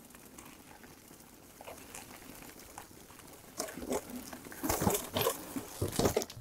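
Mountain bike tyres rolling over dry fallen leaves on a dirt trail: a low steady rolling noise at first, then from about three and a half seconds in a run of louder crunching and rustling with a few thumps as the bike goes down a bumpy, leaf-covered stretch.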